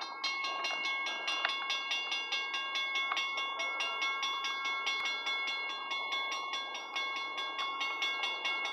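Railroad grade-crossing bell ringing in rapid, evenly spaced strokes, several a second, warning of an approaching train.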